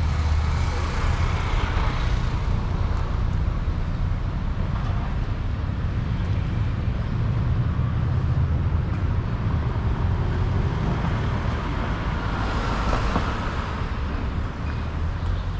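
City street traffic: a steady low rumble of cars passing along a busy boulevard, swelling as vehicles go by at the start and again near the end.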